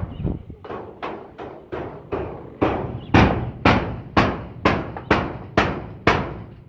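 Footsteps on a pitched roof of corrugated steel roofing sheets: a steady series of hollow metallic bangs, about two a second, each ringing briefly, growing louder partway through.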